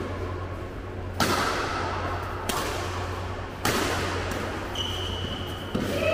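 Badminton rally: a racket strikes the shuttlecock four times, about a second apart, each hit a sharp crack that rings in the hall, over a steady low hum.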